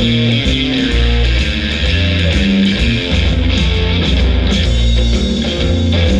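Rock music with electric guitar over a strong, rhythmic bass line.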